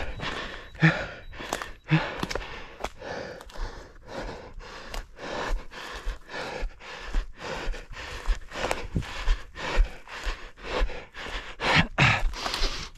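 A runner breathing hard and rhythmically while running, with breaths and footfalls coming about twice a second.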